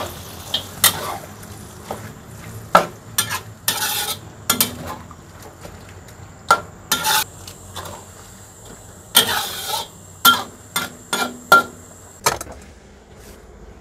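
Utensil stirring greens in a pot of hot broth, knocking and scraping against the pot a dozen or so times over a faint simmering hiss.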